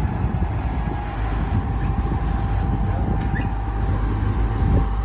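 Heavy machinery engine of a barge-mounted crane running with a steady low rumble during a lift.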